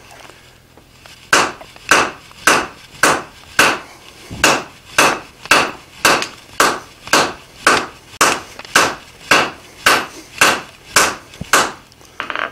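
Hand hammer striking red-hot steel on an anvil: about twenty even blows at roughly two a second, beginning a little over a second in. The blows draw a taper on the end of a sucker-rod coupling to form a hardy shank.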